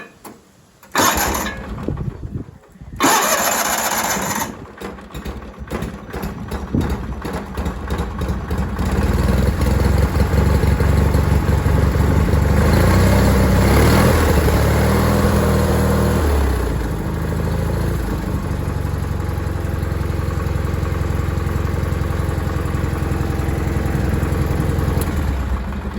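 A 1988 John Deere 318's Onan P218G twin-cylinder engine on a cold start: two short bursts of cranking, then it catches and runs. Its speed and loudness rise for several seconds mid-way, then it settles into a steady run.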